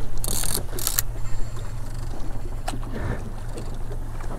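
Boat's outboard motor idling with a steady low hum, with a few sharp clicks in the first second.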